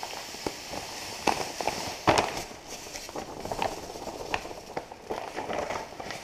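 Granular activated carbon pouring through a plastic funnel into a filter tank with a steady hiss, while the plastic carbon bag crinkles and crackles as it is shaken empty. The loudest crackle comes about two seconds in.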